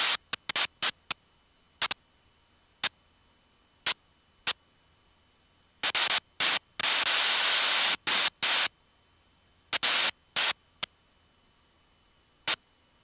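Cockpit headset intercom letting through short bursts of engine and wind hiss, each cut on and off abruptly as the voice-activated squelch opens and closes. There is one longer burst of about two seconds about seven seconds in, with near silence in between.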